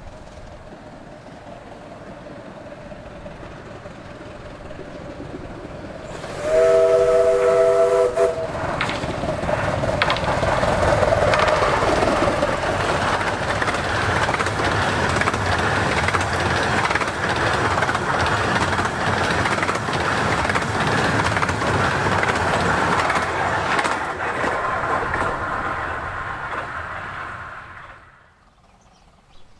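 A miniature steam locomotive of the 15-inch-gauge Romney, Hythe & Dymchurch Railway approaches, gives a chord whistle of three notes for about two seconds, then runs past at speed with its train clattering over the rails. The sound drops away sharply near the end.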